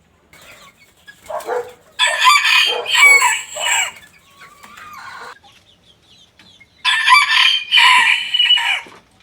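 Rooster crowing: two loud, drawn-out crows, one about two seconds in and another near the end, with fainter calls between them.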